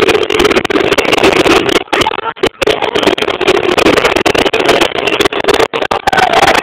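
Loud, distorted football stadium crowd noise, a dense steady wall of sound that cuts out briefly about two seconds in and twice more near the end.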